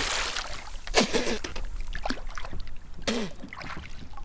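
Water splashing beside a kayak as a released jack crevalle kicks away, followed by a couple of sharp knocks about one and three seconds in.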